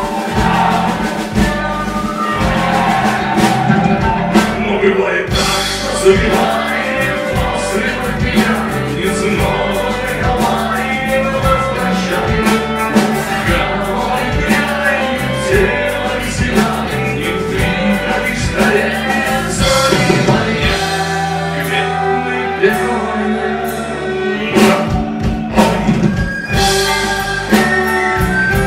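Live folk-rock band playing a song: electric guitar, bass guitar, drum kit and violin, with sung vocals over a steady drum beat.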